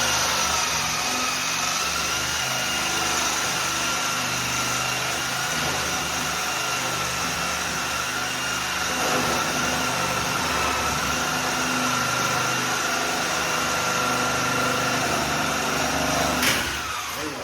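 High-speed rotary power cutting tool cutting through a bolt, running with a steady, loud high whine. About 16 seconds in it is switched off with a click and winds down, falling in pitch.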